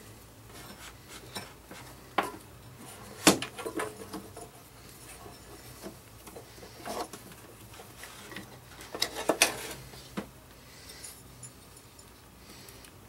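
Scattered metal clinks and knocks from hands working a new V-belt onto the pulleys of a walk-behind mower's belt drive. The sharpest knock comes about three seconds in, with a quick run of clinks around nine seconds.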